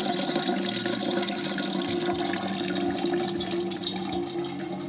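Water running steadily, an even splashing hiss with a steady low hum underneath.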